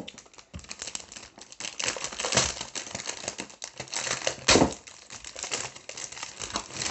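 Thin plastic wrapping crinkling and crackling as it is handled and pulled off a rolled canvas, with a couple of louder crackles partway through.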